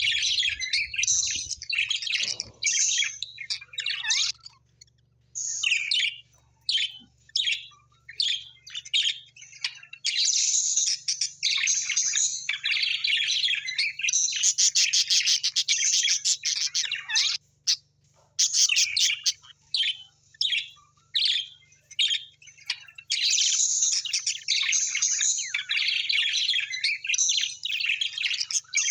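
Small birds chirping and twittering in fast, dense runs, broken by short pauses.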